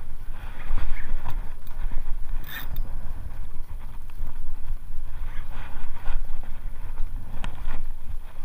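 Loud low rumble of wind and boat noise on the microphone. Over it come scattered clicks and rattles as a Shimano Saragosa spinning reel is cranked on a bent jigging rod, with a fish on the line.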